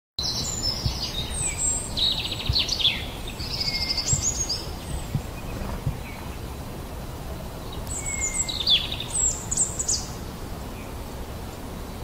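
Fledgling Eurasian bullfinch begging for food with clusters of rapid high chirps, quieter for a few seconds in the middle. A steady low background rumble runs underneath.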